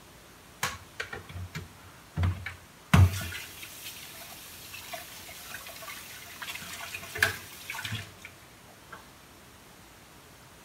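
A plastic blender jar is knocked several times against a tub as it is emptied. The loudest knock comes about three seconds in, and then a kitchen tap runs for about five seconds while something is rinsed under it, with a few clatters, until the water stops about eight seconds in.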